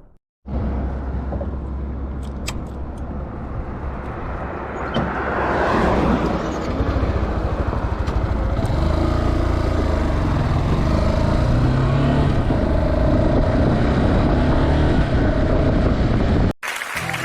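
Motorcycle running on the move, a loud steady rumble with a wavering engine note through its second half. It starts after a brief gap and cuts off abruptly near the end.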